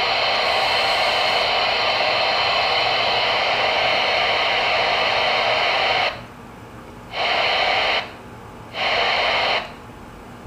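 Static hiss from a Voyage CB radio's speaker, received on channel 22 AM. It cuts off sharply about six seconds in, then comes back twice in short bursts of under a second.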